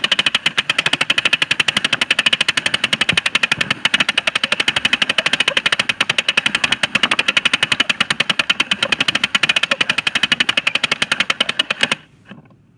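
Toy film projector mechanism clattering with rapid, even clicks as the film runs. It stops abruptly near the end, when the film reaches its end card.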